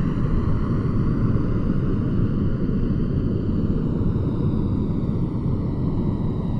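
Airplane engines rumbling steadily: a deep, even roar with a fainter hiss above it.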